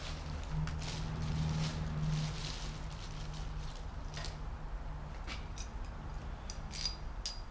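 Small metal hardware (spacers, washers, bolts) clicking lightly now and then as it is handled, over a steady low hum.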